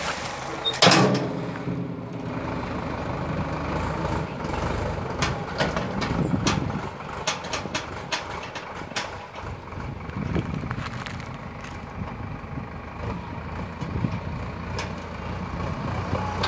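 Hindustan tractor's engine running steadily, with repeated clanks and knocks from the hydraulic backhoe attachment working; the loudest knock comes about a second in.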